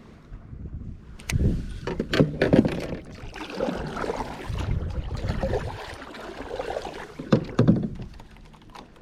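Knocks and bumps against a kayak's hull with water swishing, as gear is handled and the boat moves on the water. There are loud knocks about a second in, a cluster around two seconds in, and two more near the end.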